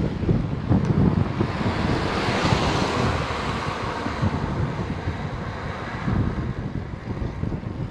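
Wind buffeting the microphone of a handlebar camera on a bicycle climbing a hill, a gusty low rumble. A broad hiss swells about two seconds in and fades out over the next few seconds.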